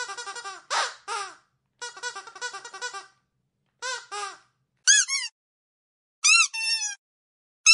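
Dog squeaky toy squeaking in quick runs of short squeaks, with silent gaps between the runs. In the second half it gives single and paired squeaks that rise and fall in pitch; these are the loudest.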